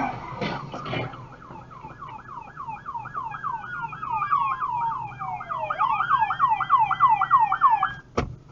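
Police sirens: one yelping fast, about three rising-and-falling sweeps a second, over a second, slower wail that glides down and then back up.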